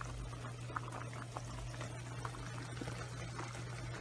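A pot of pasta and kale boiling hard, its water bubbling with small pops, over a steady low hum that stops near the end.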